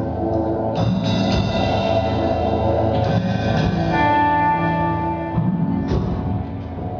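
Live rock band music: sustained guitar with effects and echo over drums and percussion, with sharp hits about a second in, at three seconds and near six seconds, and a held high note from about four to five seconds in.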